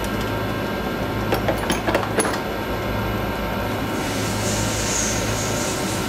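Metal lathe turning an FAL rifle barrel at low speed: a steady motor hum, with a few light clicks about one and a half to two seconds in and a soft hiss about four seconds in.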